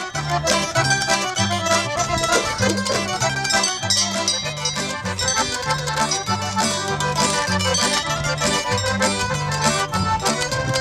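Instrumental background music with a stepping bass line, starting abruptly at the beginning and playing steadily.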